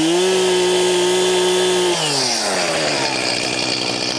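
Chainsaw revved up to full throttle and held there for about two seconds, then easing off, its pitch falling back toward idle.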